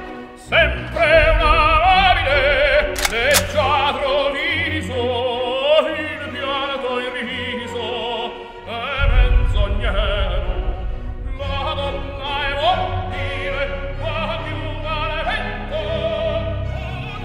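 Operatic singing with strong vibrato over an orchestra. A low, loud swell enters about nine seconds in.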